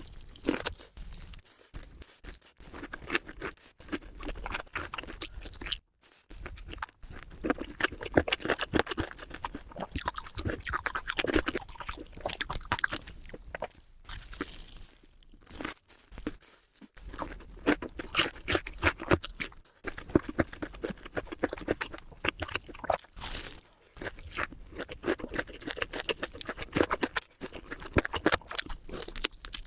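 A person chewing and crunching food close to the microphone in quick, irregular bites, with a couple of short pauses.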